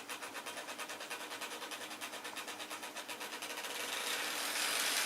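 Motorized toy train running on its track with a rapid, even clicking, about six clicks a second; about three and a half seconds in it speeds up and gets louder until the clicks blur into a steady whir.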